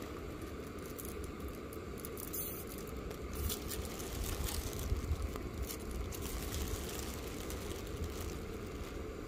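Gas canister camping stove burning steadily under a pot of pasta water, a low even rumble, with faint crackling and ticking through the middle seconds.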